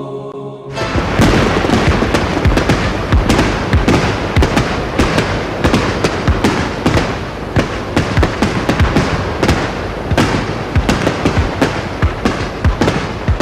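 A long, rapid string of firecrackers going off: a dense crackle with many sharp bangs at irregular spacing, starting abruptly just under a second in as the music cuts off.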